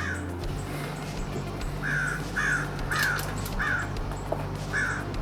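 A bird cawing over and over, about two calls a second, with a low steady hum underneath.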